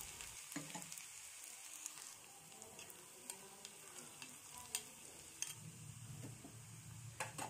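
Chopped garlic sizzling faintly in hot ghee in a small steel tadka pan, frying toward golden for a tempering. A metal spoon stirs it, clicking against the pan now and then, a few louder clicks near the end.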